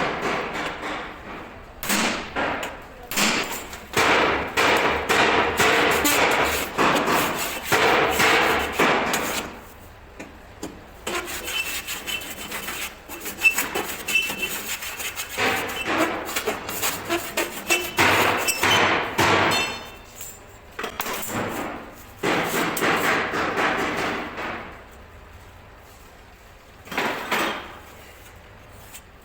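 Steel of a concrete mixer drum cone being worked by hand: repeated hammer blows and rough metal noise in long stretches with short pauses, at one point with a brief ringing of the steel.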